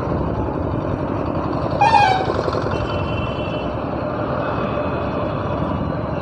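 Steady motorcycle engine and road noise while riding in town traffic, with a short vehicle horn toot about two seconds in.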